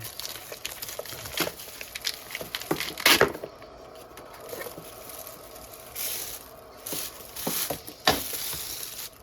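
Thin plastic wrapping crinkled and pulled off by hand: irregular crackles and rustles, with the loudest crackle about three seconds in and longer rustling near the end.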